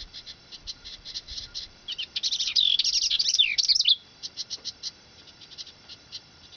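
House wren chipping, short high calls at about four a second, broken about two seconds in by a louder two-second burst of rapid song with falling notes. The chipping resumes after the song.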